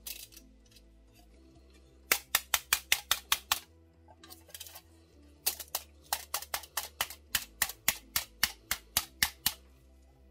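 Background electronic music: a steady bass line with two runs of quick, evenly spaced percussive clicks.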